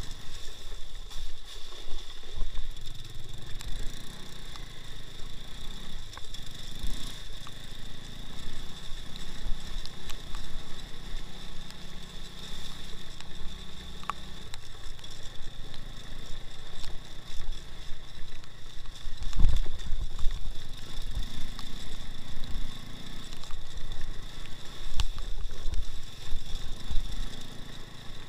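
Two-wheel-drive off-road motorcycle's engine running while riding, its pitch rising and falling with the throttle. There is a heavy thump about two-thirds of the way through.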